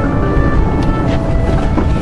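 Background music with held, stepping notes over a loud, steady low rumble of wind on the microphone and a boat.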